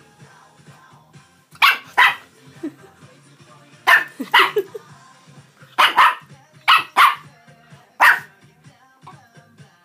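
Long-haired Chihuahua puppy barking loudly: nine high barks, mostly in quick pairs, starting about a second and a half in and stopping around eight seconds in.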